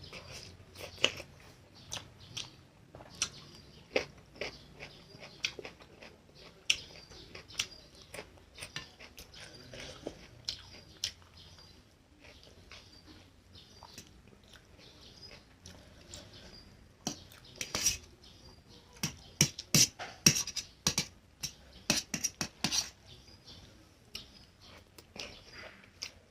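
Close-miked eating of instant Maggi noodles and fried egg: wet chewing and mouth clicks, irregular throughout. A denser run of sharp clicks comes about two-thirds of the way in.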